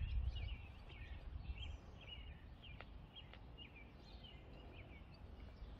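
Faint outdoor background: scattered short bird chirps over a steady low rumble.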